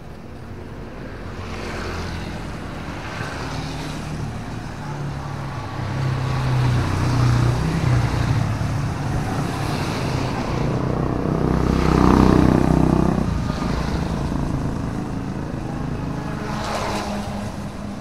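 Motorbikes and cars passing on a wet road, engines running and tyres hissing on the wet asphalt. It builds to the loudest, closest pass about twelve seconds in, then fades.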